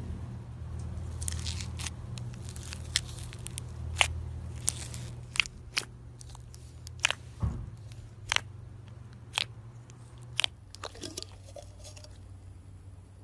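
Slime being squeezed and played with by hand, giving scattered sharp crackling pops and clicks at an uneven pace over a faint low hum.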